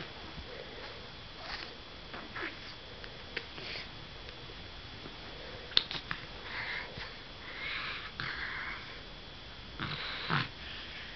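Baby snorting, a string of short irregular snorts and sniffs through the nose as he strains at a plush toy, with a sharp click about halfway through.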